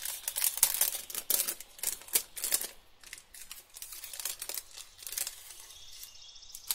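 Plastic packet crinkling and rustling as it is handled, with quick clicks and taps. It is busiest and loudest over the first half and thins out toward the end.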